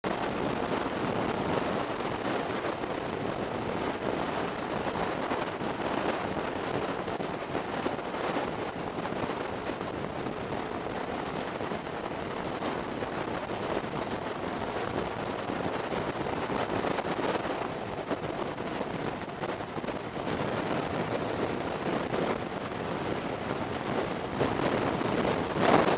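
Steady rush of wind noise on a motorcycle-mounted camera's microphone while riding at road speed, mixed with the bike's engine and tyre noise; it grows a little louder near the end.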